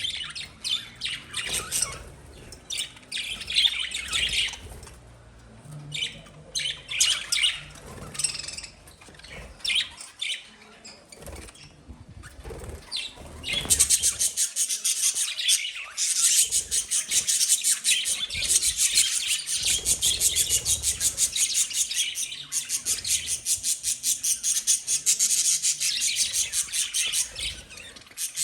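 Pet lovebirds chirping in short separate calls. About halfway in, this gives way to a dense, fast run of high chatter that keeps going.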